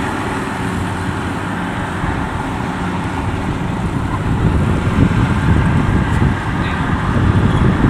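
An FMWorld WD102 Pro rice combine harvester runs steadily while harvesting, its engine and threshing droning at full work. A low rumble grows louder in the second half.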